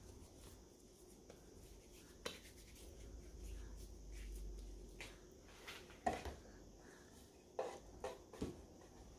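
Faint rubbing of hands rolling a ball of brioche dough, with a few soft knocks and taps, the sharpest about six seconds in and a small cluster near the end.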